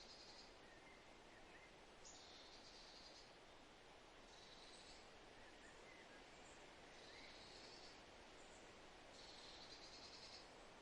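Faint forest ambience: a soft steady hiss of breeze, with a buzzy trill about a second long repeating every two to three seconds and a few faint short chirps from birds.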